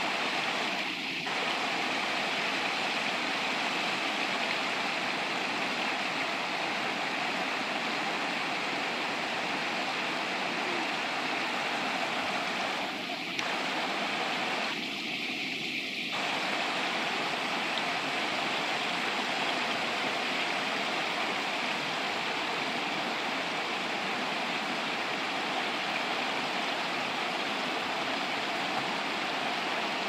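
Shallow rocky river rushing over small rapids and cascades: a steady, even rush of water.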